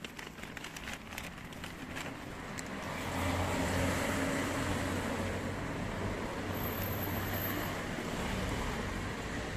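A motor vehicle's engine running close by, with a low steady hum that grows louder over the first three seconds and then holds. A few light clicks in the first couple of seconds.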